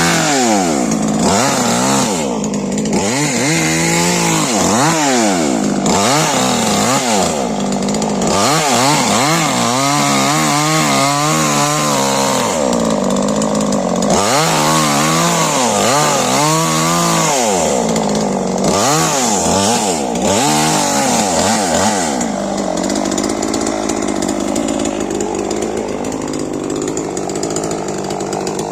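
STIHL MS 881 two-stroke chainsaw revving up and down again and again, its engine pitch rising and falling every second or two; about three-quarters of the way through it settles into a steadier, even sound.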